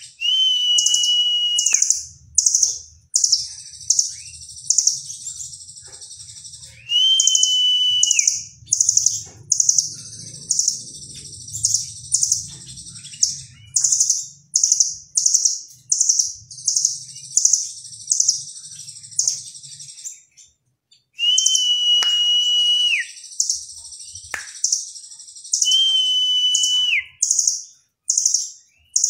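Caged blue nuthatch singing: quick, very high chattering trills in many short bursts, with four long level whistles that each drop in pitch at the end.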